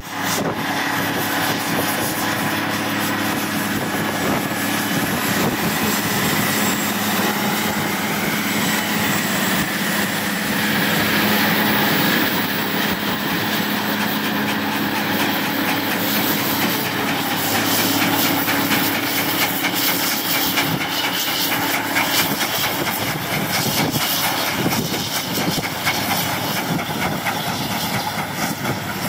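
Truck-mounted rumble strip milling machine cutting rumble strip grooves into an asphalt road shoulder: a steady, loud grinding from the milling head over the machine's running engine and hydraulics.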